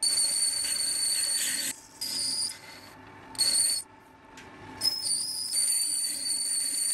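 Metal lathe cutting a pulley groove, the tool bit making a high-pitched whistling squeal as it takes the cut. The squeal cuts in and out several times.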